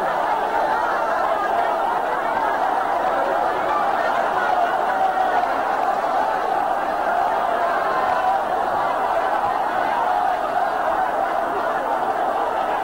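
Large crowd of many voices in a steady, unbroken din, no single voice standing out.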